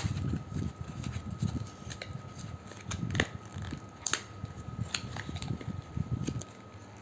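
Camera box and its packaging being opened and handled: irregular clicks, crackles and rustling, over a faint steady high tone.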